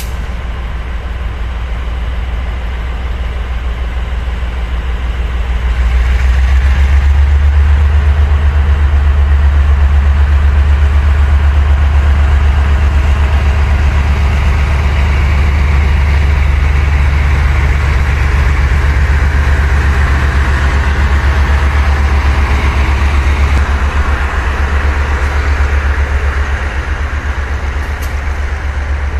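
Diesel-electric locomotive R110 hauling a passenger train past at low speed. Its engine makes a steady low drone that grows louder about six seconds in, stays strong while the locomotive and coaches pass close, and eases near the end.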